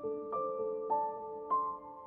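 Soft background piano music, notes struck one by one about twice a second and left to ring.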